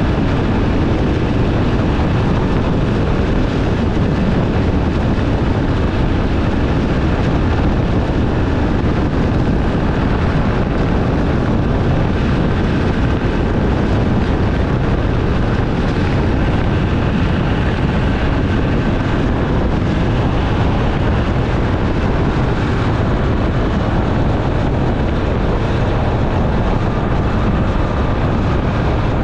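Motorcycle riding at highway speed: steady engine, tyre and wind rush with no changes.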